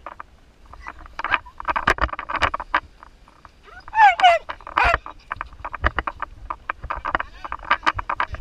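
Tandem paraglider launch: wind buffeting the microphone, harness straps and clips rattling and the wing's fabric rustling as it fills overhead. About four seconds in, two short high cries that slide downward, the loudest sounds here.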